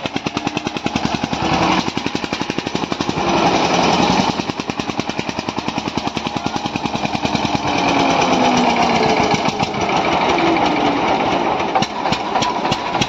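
Two Eicher tractor diesel engines working hard under load in a tug-of-war: the old Eicher's engine chugs with a fast, even knocking beat, and the Eicher 485 pulls against it. The engines get louder for a moment about three seconds in, and again about eight seconds in.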